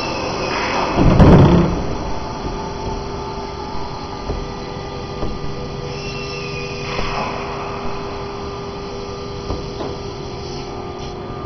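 Boeing 767 main landing gear during an alternate-extension test: one loud scraping clunk about a second in as the tire, its recap ridge caught on the gear-door deflection fitting, binds against it, then a few light knocks. A steady mechanical hum with fixed tones runs underneath.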